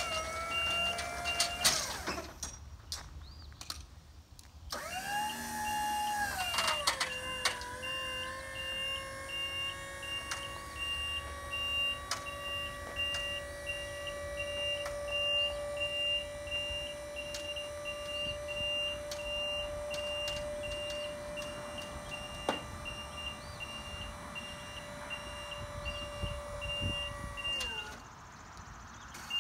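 Electric hydraulic pump motor of a Skyjack 3219 scissor lift whining as the platform is raised, with the lift's rapid motion-alarm beeping alongside. The motor runs briefly, stops, starts again about five seconds in, drops in pitch as it takes the load, then runs steadily until it stops near the end as the platform reaches full height.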